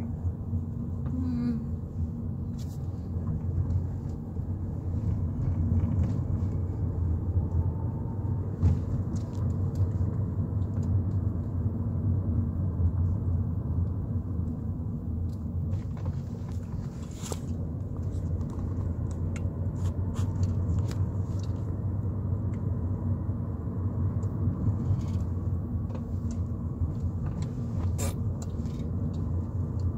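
Steady low rumble of a car's engine and tyres heard from inside the cabin while driving, with a few faint clicks and taps.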